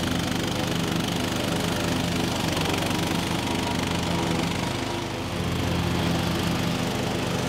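Cub Cadet riding lawn mower's engine running steadily as it cuts through tall, overgrown grass and weeds. Its engine note dips briefly about five seconds in, then picks back up.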